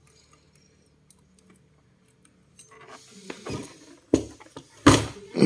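Handling noise from a plastic-cased inverter being shifted on a wooden workbench. After a quiet start come rustling and scraping, then three sharp knocks in the last second and a half.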